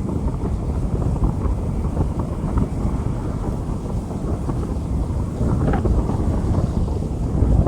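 Rain falling on a street, heard as a dense, steady hiss with a strong low rumble.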